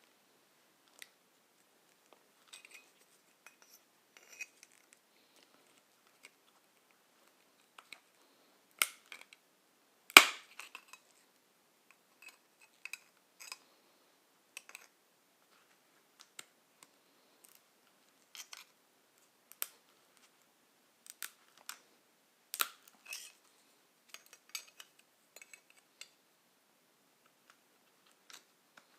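A brazed copper tube being cut by hand: scattered small clicks and crunching ticks from the tool working on the copper, with one sharp knock about ten seconds in.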